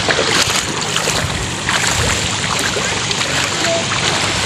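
Shallow seawater splashing and sloshing around people wading through it: a steady rush of water noise with small splashes.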